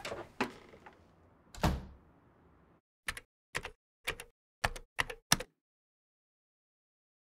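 A door shutting with a thump about one and a half seconds in, then dead silence, then six sharp typewriter-style key clacks, one after another over about two seconds, as a typing sound effect.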